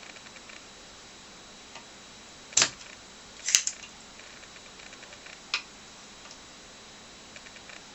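Desoldering pump snapping three times with sharp clicks as it is worked to suck solder off a key switch's lugs. Faint small ticks come between the snaps.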